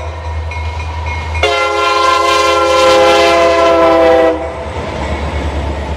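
Diesel locomotive air horn sounding one long blast of about three seconds, a chord of several notes, over the steady low rumble of the approaching CSX work train.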